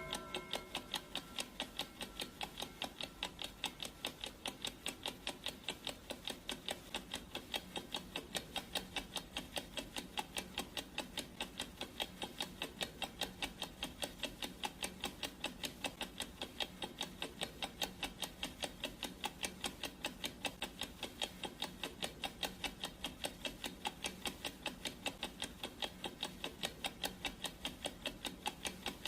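Clock-ticking sound effect of a countdown timer: a steady, even stream of ticks.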